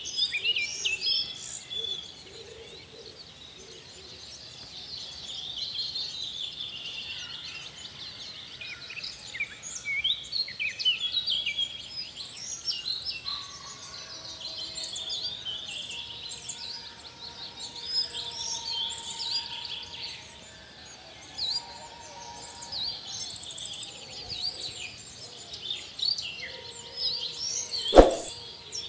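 Many small birds chirping and twittering in a busy chorus of short, quick high calls, with a single sharp click near the end.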